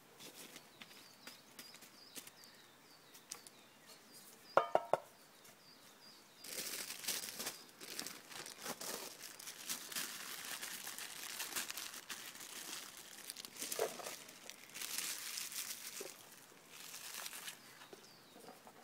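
Crinkling and rustling of wrapping being handled, in long spells, with a sharp double knock about four and a half seconds in.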